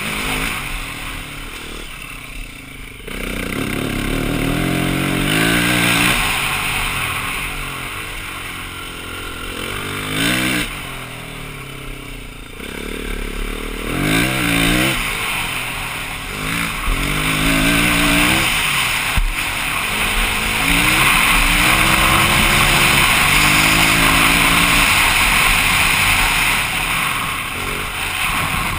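2009 BMW G450X's single-cylinder four-stroke engine under way, its pitch rising and falling over and over as the throttle is opened and rolled off, under a steady rushing noise. It holds higher and steadier for several seconds near the end.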